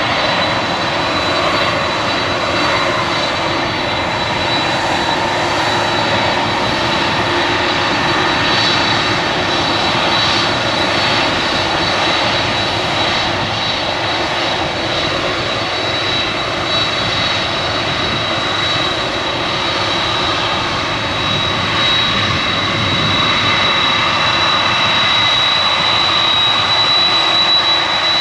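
Boeing 747-400's four jet engines running at low power as the airliner taxis: a steady jet rumble with a high whine held at one pitch, the whine growing louder near the end as the aircraft turns toward the listener.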